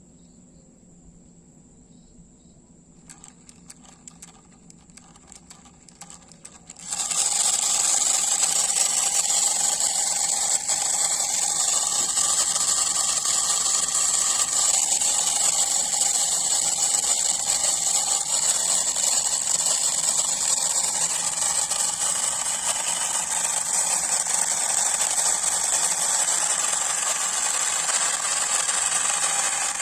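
DIY miniature diesel generator model clicking and rattling for a few seconds, then starting abruptly about seven seconds in and running steadily with a loud mechanical rattle.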